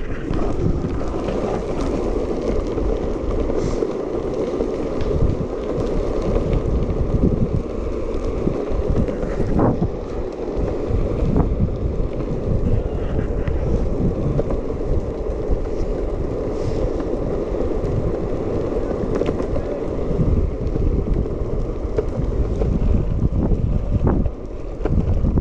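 Heavy wind buffeting the microphone at speed, over the rumble of longboard wheels rolling fast on asphalt, with a few faint clicks.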